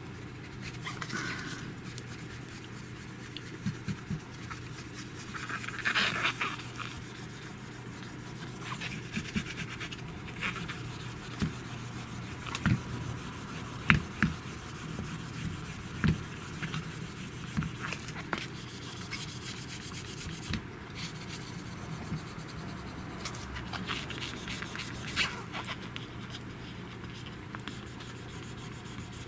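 Fingers handling and rubbing a plastic screen protector film on a phone's screen: soft scraping and rubbing with scattered light clicks, the sharpest about 14 seconds in, over a steady low hum.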